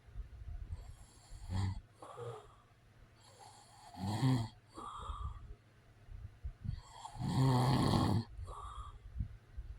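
A man snoring: two loud snores about three and a half seconds apart, the second one longer, with softer breaths between them.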